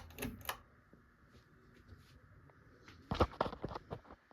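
A quick run of sharp clicks and knocks about three seconds in, after a quiet stretch of low room hum.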